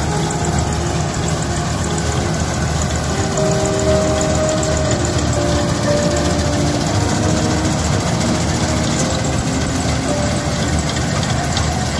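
Swaraj combine harvester running steadily under load as it cuts ripe paddy: a constant engine drone with whining tones from the machine coming and going.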